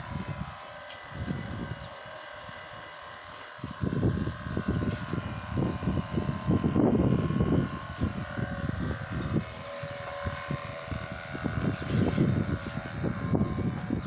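Wind buffeting the microphone in uneven gusts, heaviest through the middle, over a faint steady hum.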